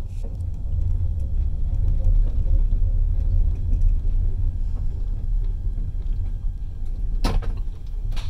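Passenger train running, heard from inside the carriage as a steady low rumble, with two sharp knocks near the end about a second apart.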